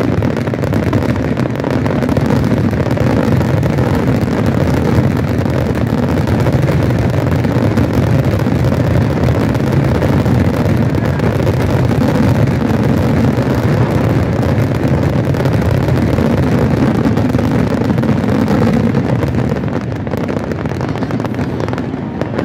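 Fireworks barrage, shells bursting so close together that they merge into a continuous low rumble, easing slightly near the end.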